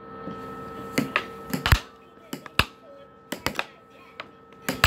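Air hockey puck clacking against the plastic mallets and the table's rails in a run of sharp, irregular knocks, sometimes two or three in quick succession. Under them runs the steady hum of the table's air blower.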